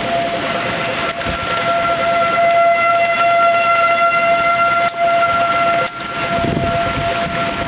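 Outdoor tornado warning siren sounding a steady tone, over the hiss of heavy rain.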